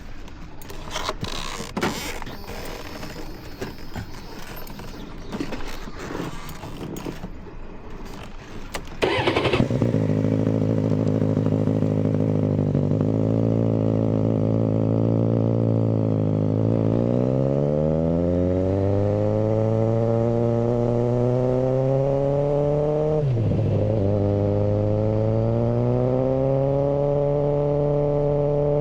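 Suzuki GSR600 inline-four motorcycle engine through a GPR Ghost aftermarket exhaust: after several seconds of clicks and clatter it starts about nine seconds in and idles. The idle rises slowly, dips sharply once, then holds steady at a higher speed.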